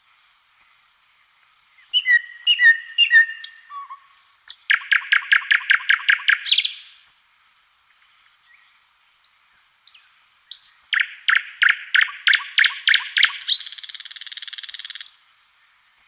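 Thrush nightingale singing two loud phrases. Each opens with a few thin high whistles and sharp notes, then a run of strong repeated notes, about six a second. The second phrase ends in a fast, buzzy rattle.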